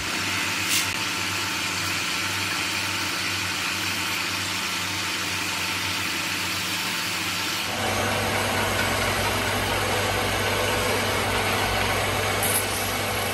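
Belt-driven wood lathe running steadily, its electric motor humming under an even hiss as hands press against the spinning wooden lid to finish it. About eight seconds in the sound shifts and the low hum grows stronger.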